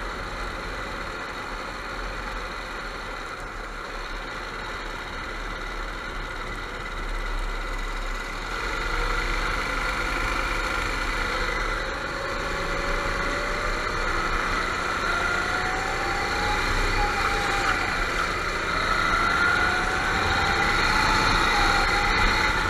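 Go-kart engines running on a track, their pitch rising and falling as the karts speed up and slow down, with several engines overlapping; it gets louder from about a third of the way in.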